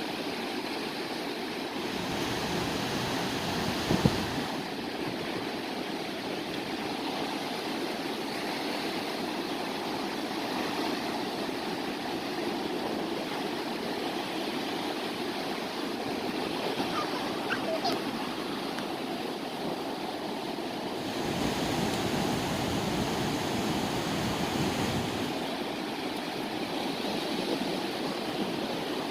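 Sea waves washing on the shore, a steady rush of surf that swells louder a couple of seconds in and again in the last third. A short knock about four seconds in.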